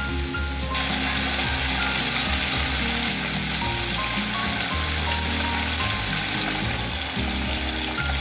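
Chicken thigh pieces coated in okonomiyaki flour deep-frying in a pot of oil, a steady sizzle that grows louder about a second in. Background music plays along with it.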